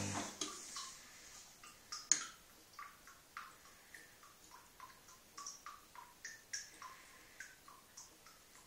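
Beko front-loading washing machine paused between drum turns on a delicates cycle: the motor hum cuts out at the start, leaving irregular drips and small clicks of water inside the drum, two or three a second, with one sharper click about two seconds in.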